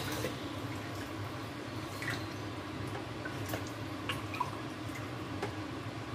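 Rice and broth stirred with a spoon in the inner pot of a Cecotec Olla GM electric pressure cooker: soft wet sloshing with light scattered clicks, over a low steady hum.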